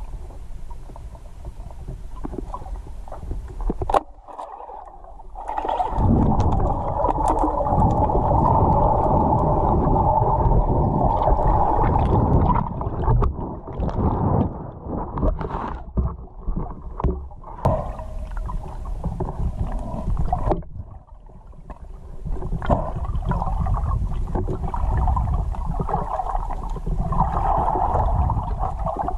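Muffled underwater rumbling and gurgling of moving water heard through an underwater camera while a diver swims and struggles with a speared pike, with a single sharp click about four seconds in.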